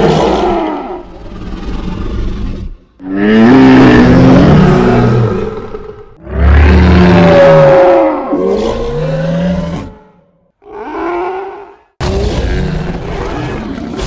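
Designed Mosasaurus creature roar sound effects: a series of loud, deep roars. There are four long ones of about three to four seconds each, one already sounding at the start and one starting near the end, with a short roar between them.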